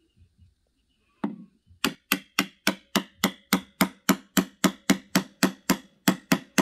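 Wooden toy mallet knocking a plastic peg down through a wooden pounding bench: one knock about a second in, then a steady run of quick knocks, about three and a half a second.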